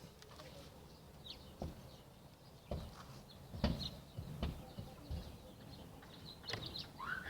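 About six scattered knocks and handling thumps, spaced irregularly, with a faint bird chirp in the background. Near the end a high tone begins to glide downward.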